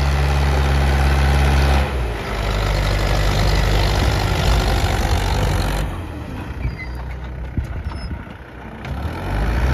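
Old tractor's diesel engine running steadily under load as it pulls a seed drill, loud close by, then quieter from about six seconds in as it moves away and louder again near the end. It is a noisy engine, which the owner puts down to the tractor being over 20–25 years old.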